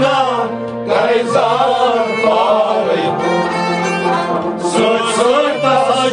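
Kashmiri Sufi kalam being performed: a male voice singing long, ornamented melodic lines that glide up and down, with instrumental accompaniment.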